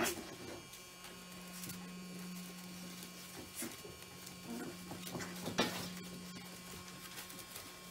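Caucasian Ovcharka puppies scuffling and mouthing at a broom's bristles on a plywood floor: scattered scrapes, rustles and small knocks, the loudest a little over five seconds in. A steady low electrical hum underlies it.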